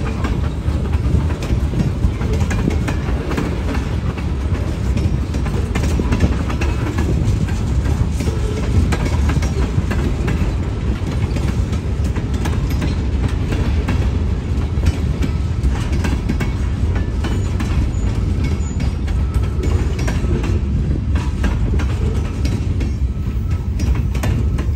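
Freight train of tank cars and boxcars rolling past at close range: a steady low rumble of steel wheels on rail with frequent clicking and clacking from the wheels over the track.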